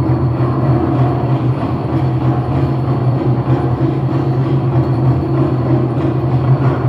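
Loud, distorted accompaniment for an Aztec-style dance, heard as a dense, steady, clattering din with a strong low hum and no clear separate beats.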